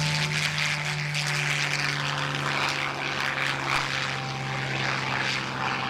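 Propeller-driven warbird flying past, its piston engine a steady drone that slowly sinks in pitch as it goes by.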